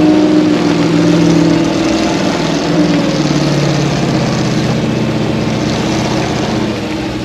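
GAZ-66 off-road truck's engine running under load, steady at first, dipping in pitch about two seconds in, then picking up again and holding.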